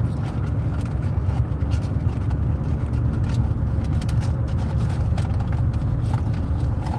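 Steady low rumble of engine and road noise inside a moving car's cabin, with a few faint clicks.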